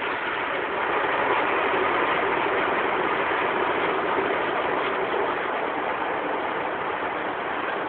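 Water spraying onto a car's windshield and body in an automatic car wash, heard from inside the car: a steady rushing noise that grows louder about a second in.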